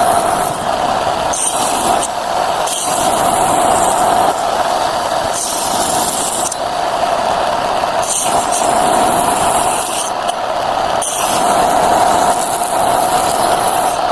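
A small electric mini saw runs with a steady motor whine while its blade cuts wood. The cutting hiss comes and goes several times as the blade is fed through the wood and eases off.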